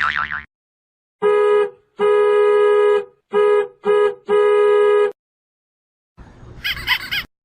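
A car horn sounding in five blasts of one steady, two-note pitch, short and long in an uneven honking rhythm. Near the end a brief, separate warbling sound effect follows.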